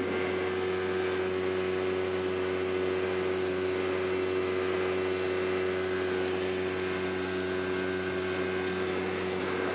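Speedboat's outboard engine running at a steady speed, heard from on board as a constant hum of several steady tones over the rush of water and wind.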